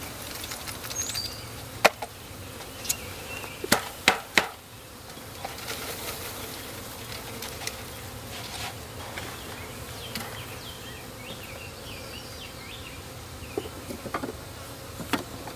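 A mass of honeybees buzzing with a steady hum. A few sharp knocks come about 2 and 4 seconds in and again near the end.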